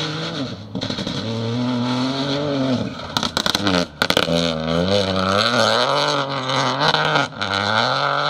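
Peugeot 208 rally car engine revving hard at full throttle on a gravel stage, its pitch climbing and dropping with each gear change. A burst of sharp cracks comes about three seconds in, as the revs fall off.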